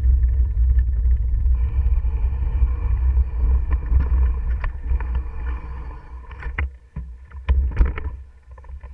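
Mountain bike ride on a dirt forest trail heard through a bike-mounted camera: heavy wind rumble on the microphone with tyre and frame noise while rolling. From about six seconds in, the rumble drops and sharp knocks and rattles come as the bike goes over rough ground into the bracken.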